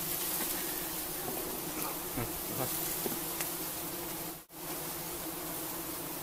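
A swarm of honeybees buzzing steadily around an exposed wild honeycomb while it is smoked and cut, the bees stirred up by the harvest. The buzz drops out for a moment about four and a half seconds in, then resumes unchanged.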